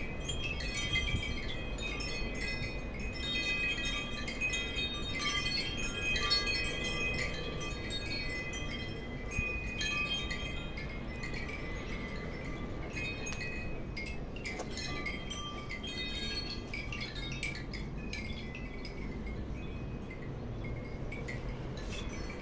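Wind chimes ringing in the breeze: metal tubes struck again and again at irregular moments, with overlapping notes that hang on, over a low wind rumble.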